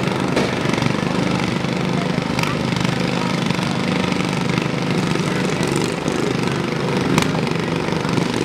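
Several riding lawn mower engines running together, with a few sharp knocks scattered through.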